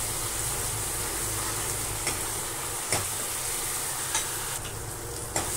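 Onion, capsicum and green chillies in soy, vinegar and chilli sauce sizzling steadily in a nonstick frying pan on a high gas flame while a spatula stirs them, with a few faint scrapes of the spatula against the pan.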